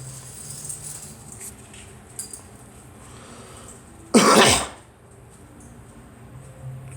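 A girl coughs once, a single short cough about four seconds in.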